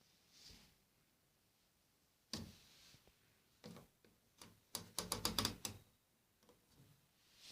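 A series of sharp clicks and knocks, with a fast rattling run of clicks about five seconds in.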